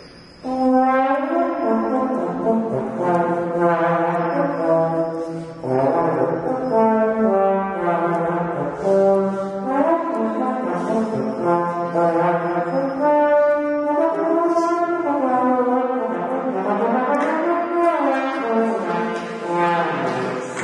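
Trombone played solo: a string of held notes, with slides gliding up and down between some of them, starting about half a second in.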